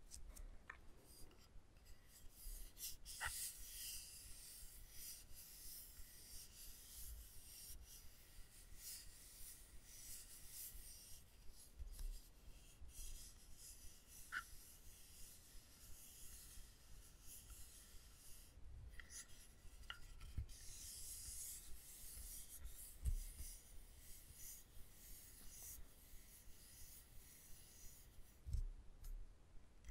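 Soft, continuous scratching and rubbing on wooden ASMR props, with a sharp click or light tap now and then.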